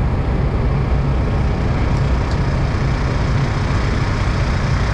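Predator portable inverter generator running steadily, a loud, even engine drone. A faint click about two seconds in.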